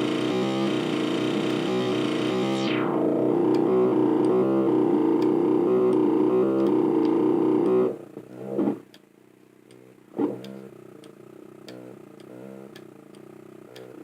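Software synthesizer (VST) playing a pulsing, rhythmic chord pattern, with a filter sweep falling in pitch about two to three seconds in. About eight seconds in the sound drops sharply to a quieter, sparser pattern with a couple of short swells.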